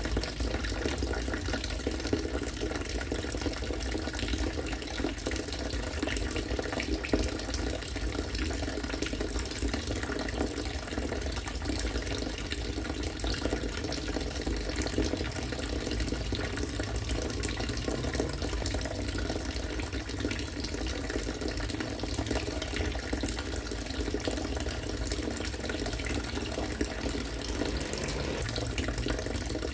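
Rainwater from a catchment system falling steadily into water, a continuous pouring stream with no breaks.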